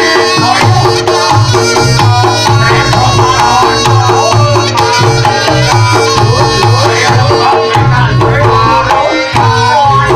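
Reog Ponorogo gamelan accompaniment: hand drums beat a steady repeating pattern under a wavering reed-horn melody and held gong-chime tones.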